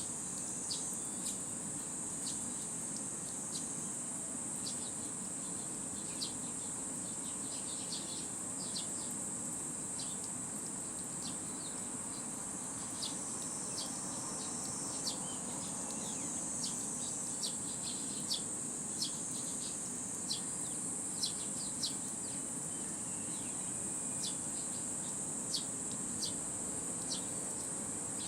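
A steady, high-pitched summer insect drone runs throughout, with many short, scattered sparrow chirps over it, more frequent in the second half.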